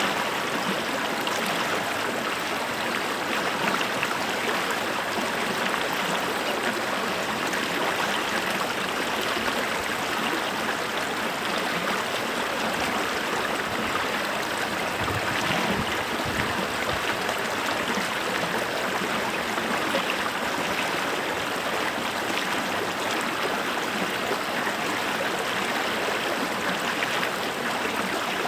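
Flowing water, a steady, unbroken rush of running water.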